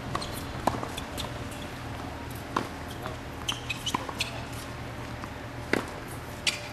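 A tennis ball bounced on a hard court by a player getting ready to serve: a few short sharp taps at irregular times over a steady low hum.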